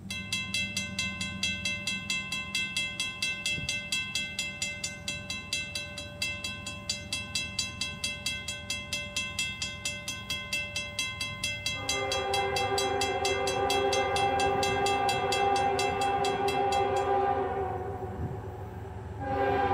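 Grade crossing warning bell ringing in rapid, even strokes while the crossing gates lower; it stops about seventeen seconds in, once the gates are down. From about twelve seconds in, the approaching CSX locomotive's air horn sounds a loud, steady chord, fades briefly near the end and sounds again.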